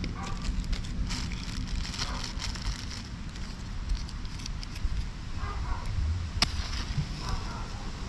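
Small clicks and crackles of hands lighting a bee smoker, working a matchbox and white kindling at the smoker's mouth, with one sharp click about six and a half seconds in.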